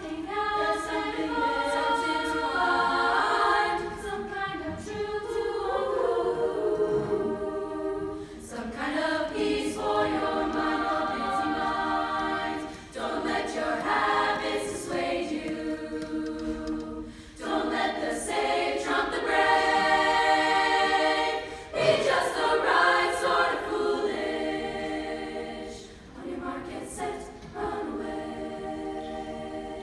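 Women's choir singing, in long sustained phrases broken by brief pauses for breath.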